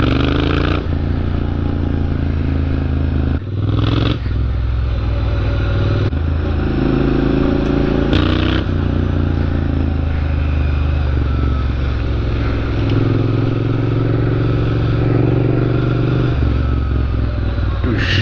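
Motorcycle engine running under way, heard from the bike's own handlebar camera, its pitch climbing and dipping several times with the throttle, with a brief drop about three and a half seconds in. Short bursts of wind hiss come over it a few times.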